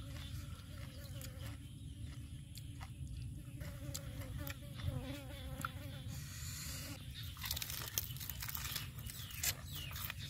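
A fly buzzing close by, its hum wavering in pitch through the first half. About six seconds in, a lettuce leaf rustles and crinkles as it is folded around the food, followed by scattered light clicks.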